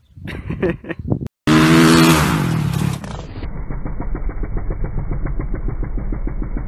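Dirt bike engine revving hard with its pitch falling as the bike slides down in a rutted corner, then settling into a steady low chugging.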